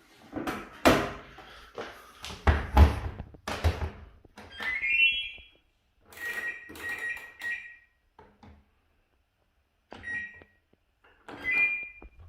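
Samsung washing machine being handled: a run of knocks and thumps from the door and cabinet, then several short high electronic beeps from the control panel, one of them rising in pitch.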